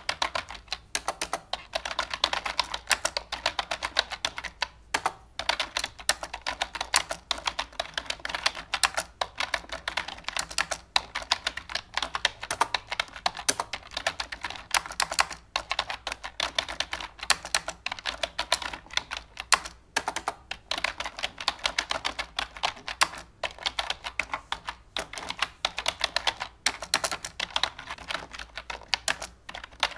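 Continuous rapid, irregular clicking, like typing on a computer keyboard, several keystrokes a second without pause.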